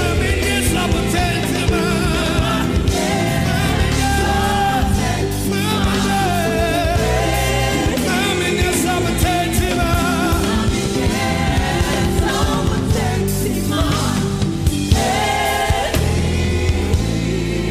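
Gospel worship music: a lead vocal with backing singers over a band with bass and drums.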